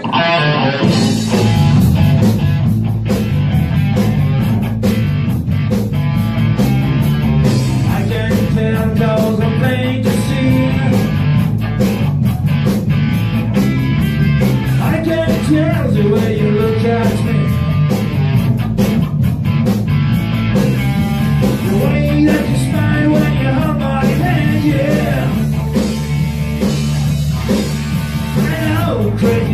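Live rock band playing loud: electric guitar, bass guitar and drum kit driving a steady beat, kicking in sharply at the start.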